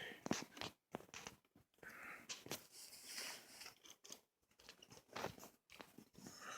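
Faint, irregular small clicks and scrapes of hands and small tools working on a motorcycle's front brake lever while its reach is adjusted.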